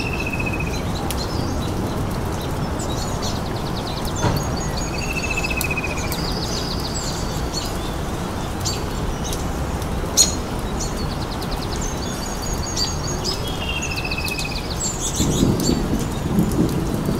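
Birds chirping and trilling again and again over a steady hiss of rain, with a low rumble building near the end.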